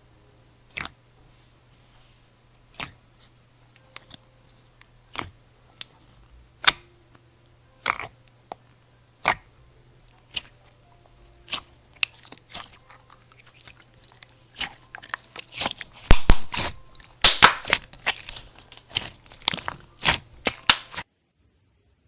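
Slime being pressed and squeezed by hand, giving sharp pops and clicks, a few seconds apart at first, then a dense crackling run in the last several seconds that stops suddenly near the end.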